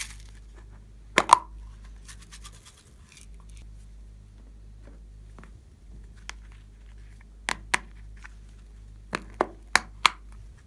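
Small plastic containers being handled: hard plastic clicks and snaps as lids are worked open and the boxes knock together, a loud pair about a second in and a quick run of four near the end, with faint crinkling in between.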